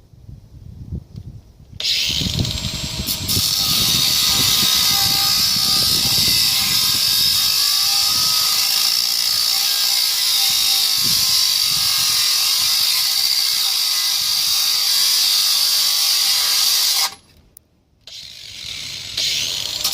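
Cordless angle grinder running on metal, a loud steady high hiss that starts about two seconds in and cuts off about fifteen seconds later.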